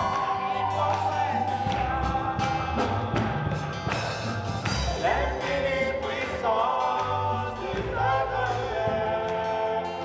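Live gospel song: a woman and a man singing into microphones over a band with electric guitar and drums.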